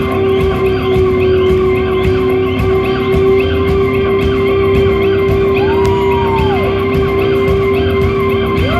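Live rock band playing, guitar to the fore, over a long held note. About two-thirds of the way in, a high note glides up and back down.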